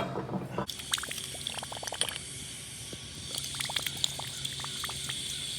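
Water draining out of a gas water heater through a garden hose, pouring steadily; the sound sets in abruptly about a second in. The flow comes once the pressure relief valve has been opened to break the vacuum that held the water in the tank.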